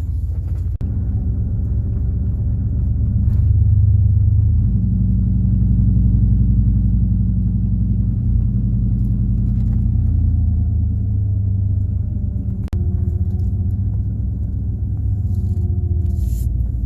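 Chevy's engine running while it is driven slowly over rough off-road ground, a steady low sound with the engine note drifting slowly up and down. The sound cuts out for an instant twice, about a second in and about three-quarters of the way through.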